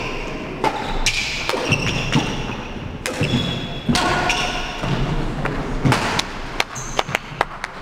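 Badminton singles rally on a wooden court: sharp racquet strikes on the shuttlecock and the players' footfalls thudding on the floor, with short shoe squeaks. Several clicks come in quick succession near the end.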